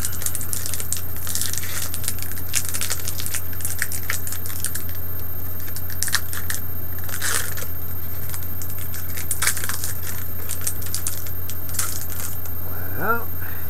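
Foil wrapper of a Pokémon trading-card booster pack crinkling and rustling in irregular bursts as it is handled and opened, over a steady low electrical hum.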